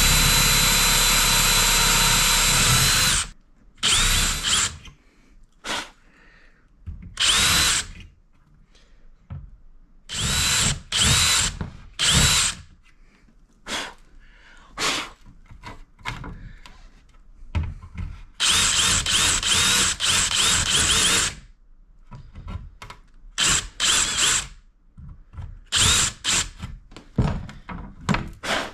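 Power drill boring vent holes through a PS5's plastic bottom cover. It runs in repeated trigger bursts: one long run of about three seconds at the start, many short ones, and another long run in the middle. The motor whine rises as each burst starts.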